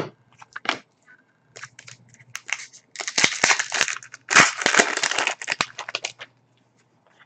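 Trading-card pack wrapper crinkling as it is handled and crumpled: scattered light clicks and rustles at first, then about three seconds of dense crinkling in the middle.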